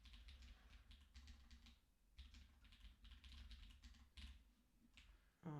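Computer keyboard typing: a quick, irregular run of faint keystrokes.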